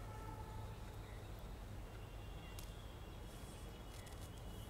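Faint outdoor background: a steady low hum with a few soft bird chirps.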